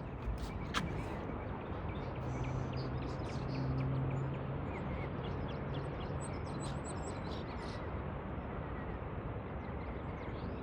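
Open marsh ambience: a steady rush of background noise with faint, scattered high bird chirps and a low hum for a few seconds in the middle.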